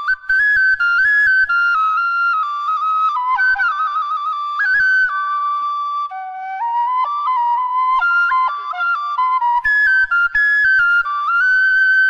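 Solo bamboo flute playing a Khmer traditional melody, moving stepwise between held notes with quick trills and ornaments.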